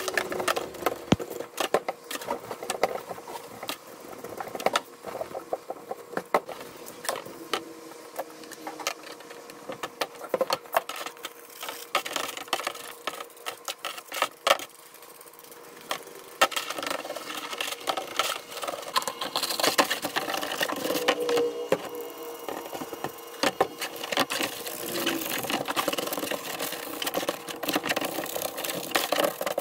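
A stiff brush scrubbing the orange plastic guard and housing of a Stihl FS38 string trimmer in a parts-washer tub of sudsy degreaser. There are quick, repeated scratchy strokes and knocks of plastic against the tub, with liquid splashing and trickling, busier from about halfway on. A steady hum runs underneath.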